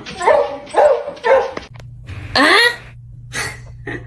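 A dog barking: three short barks in quick succession, then a louder, longer call that rises in pitch, and two shorter barks near the end. A steady low hum runs under the second half.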